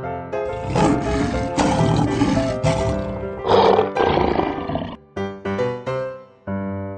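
Big-cat roar sound effects, a run of rough roars lasting about four and a half seconds, over light keyboard background music that carries on alone near the end.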